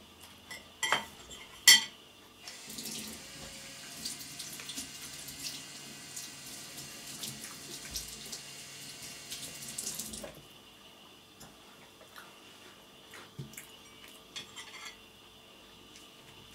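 A metal fork clicks sharply against a ceramic plate twice. Then water runs from a tap for about eight seconds, with small clinks of dishes in it, and stops; a few faint clinks of cutlery follow.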